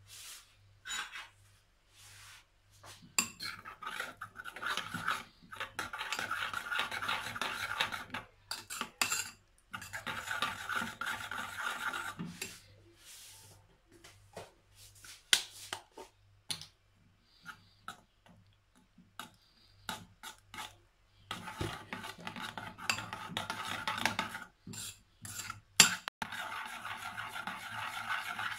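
Metal spoon stirring and scraping a grainy mixture in a glass bowl, in spells of a few seconds separated by clinks and taps of the spoon against the glass.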